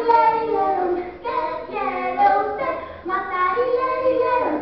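Children's high voices singing, with notes held and gliding between pitches.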